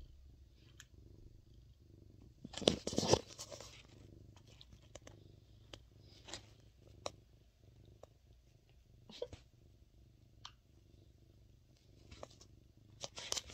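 Domestic cat purring steadily while rubbing its face against a person's cheek, with scattered short clicks and a louder brief scuffing noise about three seconds in.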